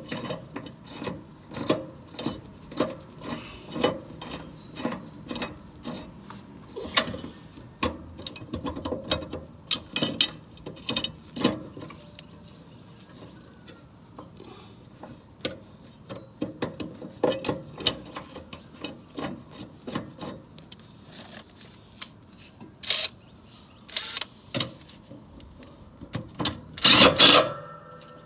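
Mower blade nut turned by hand on the deck spindle, with repeated light metallic clicks and rubbing about twice a second. About a second before the end, a DeWalt cordless impact wrench hammers in a short loud burst to run the nut tight.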